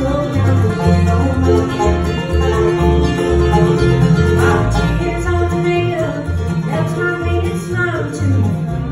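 Bluegrass band playing live: banjo, fiddle, mandolin and acoustic guitar over an upright bass that plucks a steady beat of about two notes a second.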